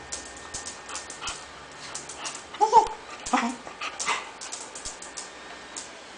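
Two small dogs playing: one gives a short, high yip a little before the middle, followed at once by a lower brief call, amid scattered light clicks and scuffles of paws on a tile floor.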